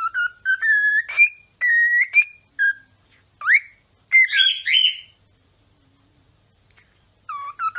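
Cockatiel whistling a tune of short clear notes that step and slide upward in pitch, pausing for about two seconds before starting to whistle again near the end.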